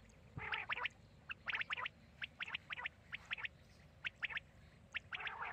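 Quail calling: short, sharp chirps in quick clusters of two or three, repeated over and over.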